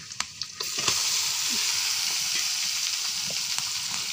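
Raw mutton tipped into hot oil and fried onions in a steel wok: a few light clicks, then under a second in a loud, steady sizzle starts as the meat hits the oil.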